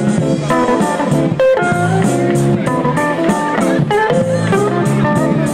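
Blues-style music led by guitar, its melody notes changing quickly and a few of them bending in pitch over a steady bass.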